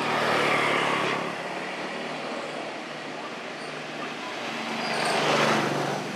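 Motor vehicles passing, the engine noise swelling and fading twice: once at the start and again about five seconds in.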